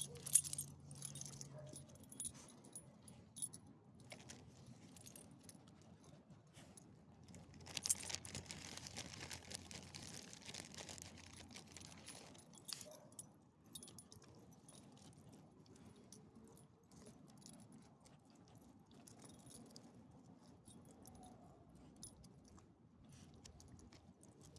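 Faint, irregular jingling of small metal dog-collar tags and leash hardware as small dogs walk on leash. About eight seconds in there are roughly four seconds of hissing noise.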